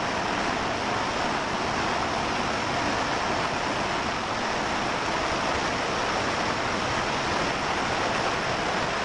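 Heavy rain and hail coming down hard together: a steady, dense hiss of pouring rain and hailstones that does not let up.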